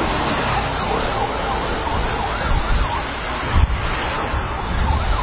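An emergency vehicle's siren wails up and down under a loud, steady rumbling noise. A sharp thump comes a little past halfway.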